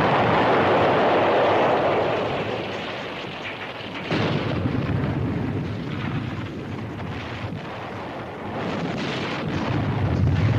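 Shell explosions with a long rolling rumble: the roar of one blast fading over the first two seconds, a second blast about four seconds in, and the rumble swelling again near the end.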